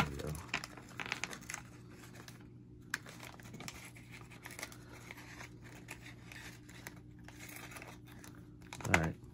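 Wrapper of a trading-card pack crinkling and tearing as it is peeled open by hand, in quiet, scattered rustles.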